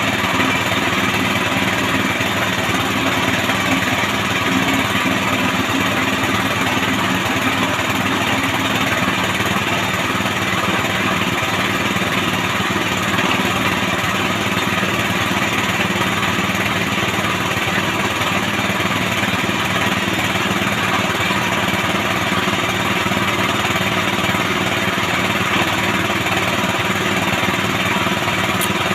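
Small petrol engine of a bore-well drilling machine running steadily at a constant speed.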